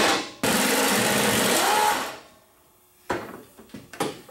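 An impact wrench rattling as it undoes a bolt under the truck: a short burst, then one longer run of about a second and a half that fades out. A few light tool knocks follow near the end.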